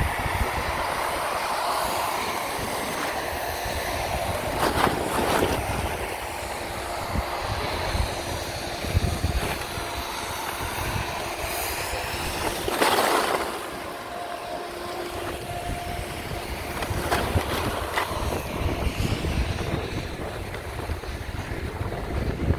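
Sliding down a groomed ski slope: edges scraping over packed snow, with wind rumbling on the microphone. There are two louder scrapes, about five and thirteen seconds in.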